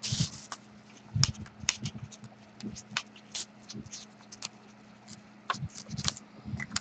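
Scattered light clicks and taps of small objects being handled on a desk, irregular, over a faint steady hum.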